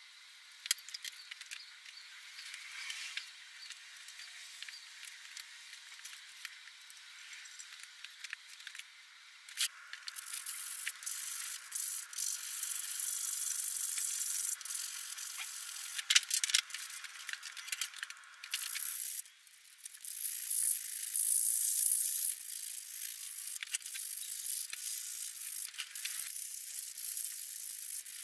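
Hands rubbing and scraping at a car brake disc and hub mounted on a shock absorber, making a scratchy, hissing noise. It is faint for the first ten seconds or so and denser and louder after that, with scattered sharp clicks.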